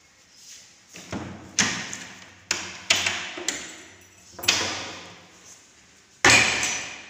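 About six irregular thuds and knocks, each followed by a short echo in a bare, tiled room. The loudest comes near the end.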